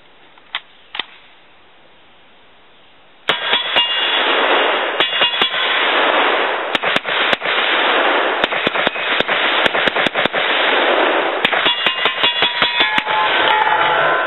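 Two light clicks about half a second apart, then a rapid string of semi-automatic shots from a Group Industries short-barreled Uzi, fired a few times a second for about ten seconds with echo and a metallic ringing.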